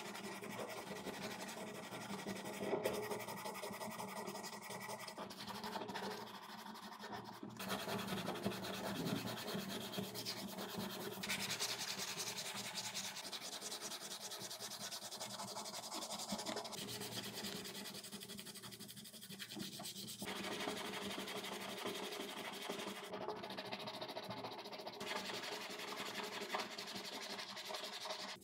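Black plastic drill housing being hand-sanded: steady, fast back-and-forth rubbing and scraping of abrasive paper on plastic, changing abruptly in tone several times.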